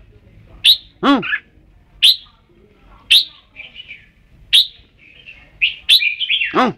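Red-whiskered bulbul singing: short, bright whistled notes about once a second, with two lower, fuller calls, one about a second in and one near the end.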